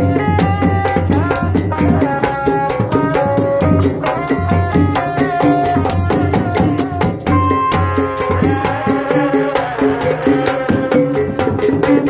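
Live tanji procession music for kuda renggong dancing horses: fast, dense drumming with a pulsing bass and a stepping melody line over it, played loud and steady.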